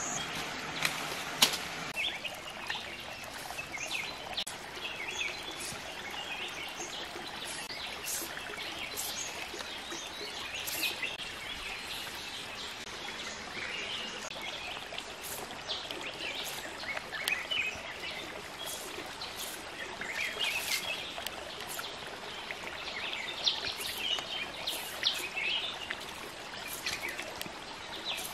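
Wild birds chirping in short repeated calls over a steady hiss of outdoor noise, with scattered sharp clicks.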